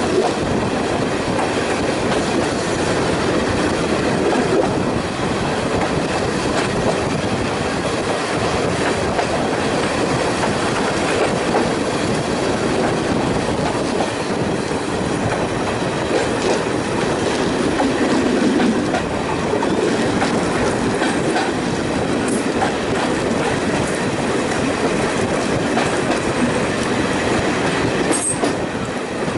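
Heritage diesel multiple unit running along the line, heard from a carriage window: a steady rumble of its wheels on the rails and its engine, with a few sharp high ticks near the end.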